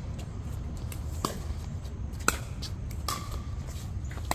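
Several sharp, isolated knocks over a steady low rumble, the loudest a little past two seconds in; one knock is followed by a brief ringing tone.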